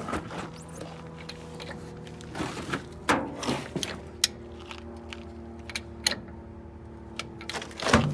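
Scattered metal clanks and knocks from working a three-jaw puller on a truck's rear brake drum, the loudest about three seconds in and near the end, over a steady low hum.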